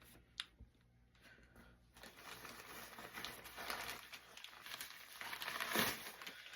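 Packaging crinkling and rustling as a mailed package is opened by hand. A single sharp click comes about half a second in, and the crinkling grows busy from about two seconds on, loudest near the end.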